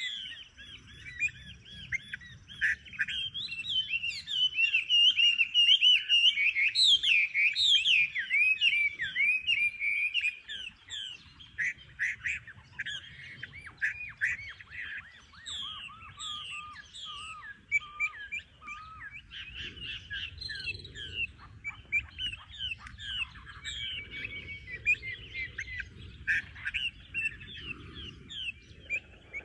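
Many small birds chirping and twittering at once in a dense, overlapping chorus, loudest in roughly the first ten seconds. A lower, repeated note joins briefly around the middle.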